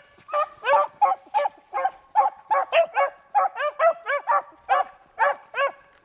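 A pack of beagles baying in quick, repeated short barks, several hounds giving voice at once, about three or four barks a second: the hounds are running a rabbit's scent line. The baying stops suddenly near the end.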